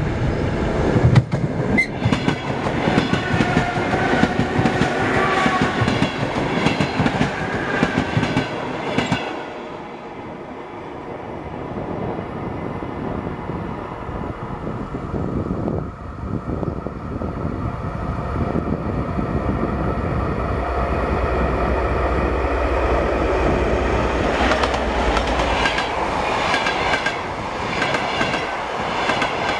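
A train running on the rails, its wheels knocking rhythmically over the rail joints. The sound eases off about a third of the way in and builds up again toward the end.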